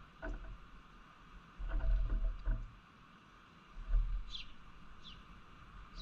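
Small birds splashing and fluttering their wings in a stone birdbath: short bouts of water splashing with low thumps, the longest about two seconds in. Two short high bird chirps come near the end.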